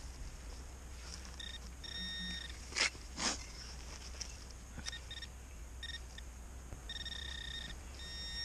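Garrett AT Max metal detector giving repeated mid-pitched target beeps, some short and a few held longer, as it signals a buried metal target. Two loud, brief noises close together about three seconds in.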